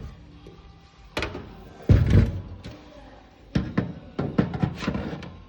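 A computer power supply being fitted into a PC case: a knock, then a heavy thump about two seconds in, followed by a quick run of sharper knocks and clacks in the second half.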